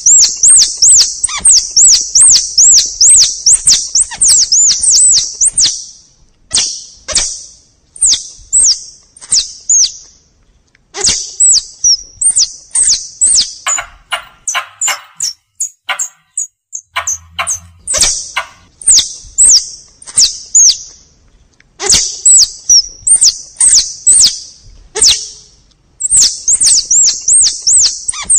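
Lure recording of forest squirrel (tupai) calls: rapid high chirps, about four or five a second, in bouts of a few seconds separated by short pauses, with sharp clicks among them.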